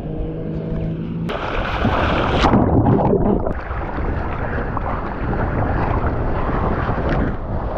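Rushing water and wind buffeting a GoPro's microphone while surfing. A faint steady hum in the first second is cut off by a sudden loud rush of spray about a second in, which then settles into steady churning water noise.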